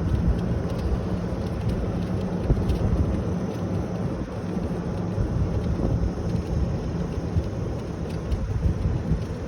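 A vehicle driving, with steady engine and road noise.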